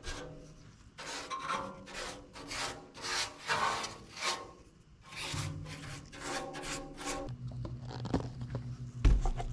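A brush scrubbing liquid rust converter onto the bare sheet-metal inside of an old welder's cabinet, in quick repeated strokes of about three a second, in two runs. A single knock comes near the end.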